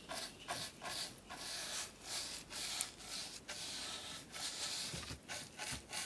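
Bristle paintbrush brushing a wet vinegar-and-steel-wool stain onto rough scrap wood: repeated short swishes of bristles across the grain, about two a second.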